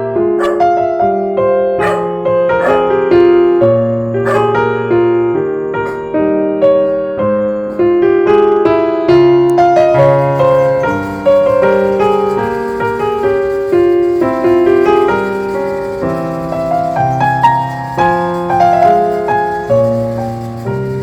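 Instrumental piano music: a melody of single struck notes moving over held bass notes.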